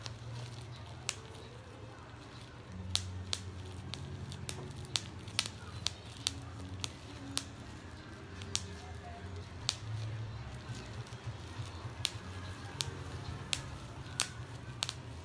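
Bubble wrap being handled and pulled open by hand, crinkling with sharp, irregular crackling clicks.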